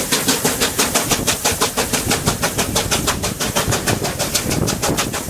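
Steam locomotive working steadily under way, its exhaust beating in a rapid, even rhythm of about eight chuffs a second, with the rumble of the train on the rails, heard from the open window of the carriage just behind the tender.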